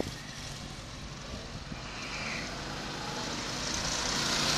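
Go-kart engines running on the track, their drone and hiss growing louder in the second half as a kart approaches.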